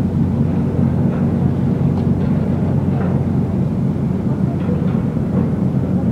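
Steady low diesel engine drone carried across the harbour water from a large bulk carrier and its assisting tugboats as the ship is worked off the quay.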